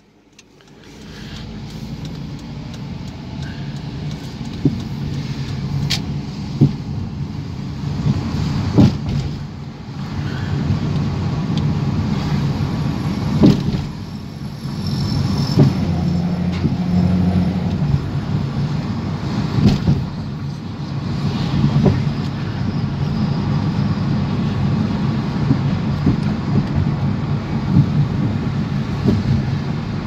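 Car engine and tyre noise heard from inside the cabin as the car pulls away and drives on. It rises over the first few seconds to steady road noise, with sharp knocks every few seconds.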